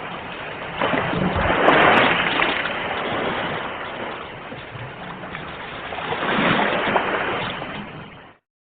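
Ocean waves breaking and washing on a shore, the surf swelling twice and fading between. The sound cuts off suddenly near the end.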